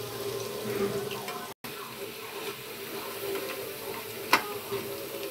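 Aloo pakoras (battered potato slices) deep-frying in hot oil: a steady sizzle with scattered crackles. The sound drops out for an instant about a second and a half in, and there is one sharp click a little after four seconds.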